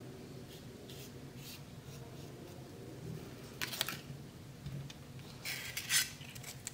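Quiet room tone with a faint hum and a few light taps and rustles as painted cardboard egg-carton pieces are set down and picked up on newspaper; the loudest, a brief scuffing rustle, comes near the end.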